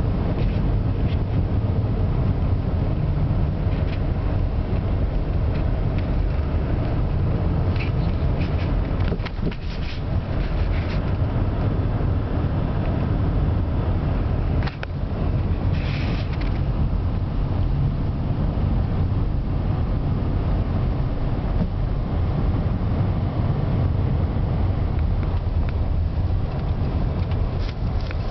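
Steady low rumble of a car driving, with road and engine noise heard from inside the cabin and a few brief knocks.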